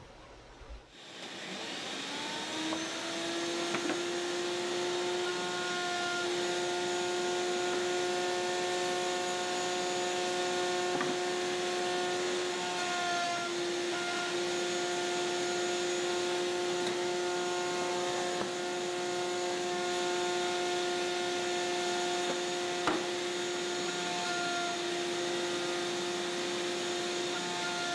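A table-mounted router spinning up over about two seconds and then running at speed with a steady high whine, together with the hiss of dust extraction at the hood, as a plywood part is fed past the bit. A single sharp knock comes about three quarters of the way through.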